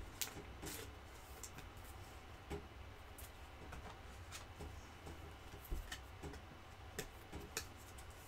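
Faint, scattered clicks and light rustles of trading cards being handled and slid through the fingers, over a steady low hum.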